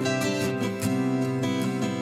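Background music of a strummed acoustic guitar, chords struck in a steady rhythm of about four strokes a second.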